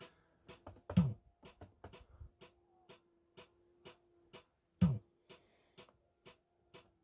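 Cheetah SpecDrum digital drum machine on a ZX Spectrum playing through speakers. An even clicking beat runs at about two ticks a second, with two heavy snare-drum sample hits about four seconds apart. A faint steady hum sits underneath.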